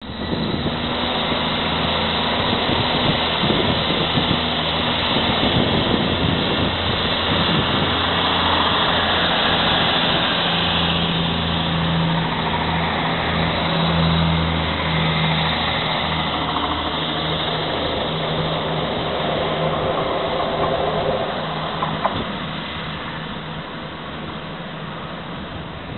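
Class 159 diesel multiple unit's underfloor Cummins six-cylinder diesel engines running under power as the train moves past close by, a steady low engine note over a clattering mechanical noise. The sound fades from about 22 seconds in as the train draws away.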